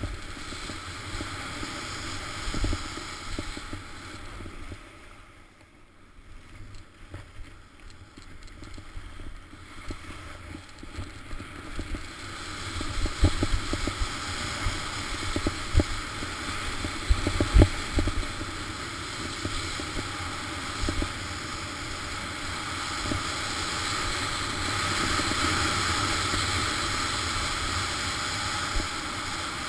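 Skis running fast over groomed snow, heard through an action camera with wind on the microphone: a steady rushing hiss. It drops away for a few seconds about five seconds in, and a handful of short low thumps follow between about thirteen and eighteen seconds. Near the end the hiss grows louder and steadier.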